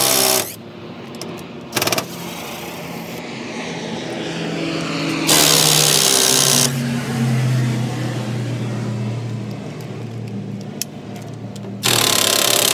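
Cordless impact driver running in short bursts as it backs hinge screws out of a wooden door: one burst ending just after the start, a brief one about two seconds in, a longer one around the middle, and another starting near the end. Between the bursts a lower engine-like hum swells and fades.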